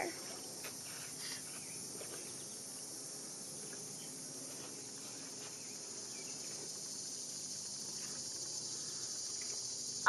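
Steady, high-pitched chorus of insects, a continuous shrill hiss that grows slightly louder toward the end.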